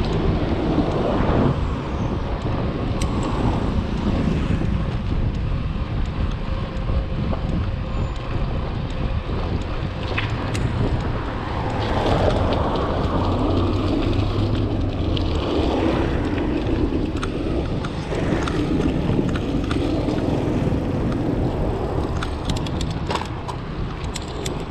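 Wind buffeting the microphone of a moving bicycle, mixed with tyre and road rumble, swelling for a few seconds around the middle.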